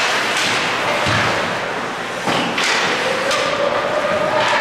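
Bantam ice hockey play: several sharp knocks of sticks and puck against the ice and boards over steady rink noise. A long held call starts about three seconds in.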